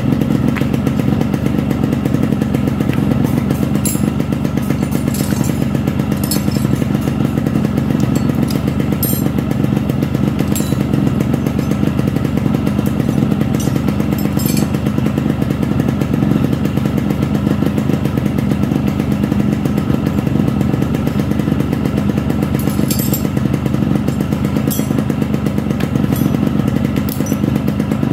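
Yamaha RX Special's two-stroke single-cylinder engine idling steadily, freshly rebuilt with a new piston set, cylinder block, connecting rod and crankshaft bearings.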